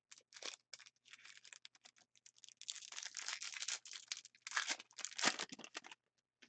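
Trading-card pack wrapper being torn open and crinkled: a dense run of short, irregular rips and crinkles that stops about six seconds in.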